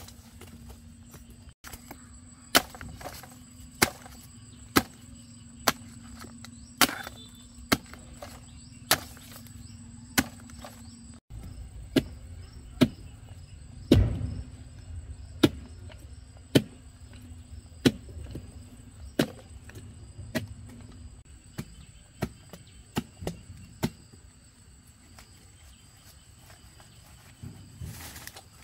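A blade chopping bamboo shoots: sharp strikes about once a second, stopping about 24 seconds in, with a few more near the end.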